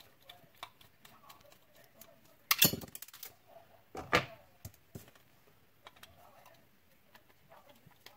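Small hard parts handled on a work surface: light scattered ticks, a short clattering rattle about two and a half seconds in and a single sharp knock about four seconds in.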